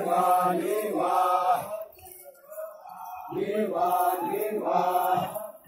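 A group of voices chanting a folk song together in unison, in two loud phrases with a short lull between them.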